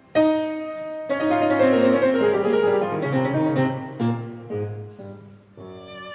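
Background music: piano playing chords and a melody, with a new phrase struck about a second in.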